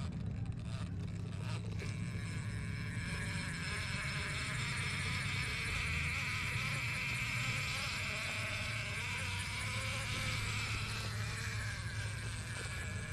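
Axial RBX10 Ryft RC rock bouncer's brushless motor and drivetrain whining as the truck crawls over rock. The high whine holds for several seconds through the middle and dies away near the end.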